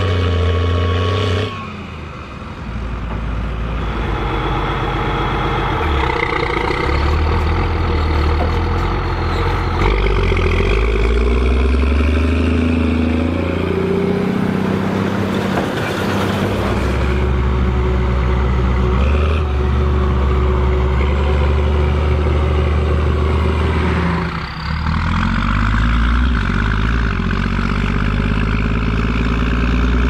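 Case 2294 tractor's turbocharged six-cylinder diesel engine running hard under load while pulling a Hesston 4900 large square baler, with the baler's machinery working. The sound cuts between shots twice, the engine's pitch shifting at each cut.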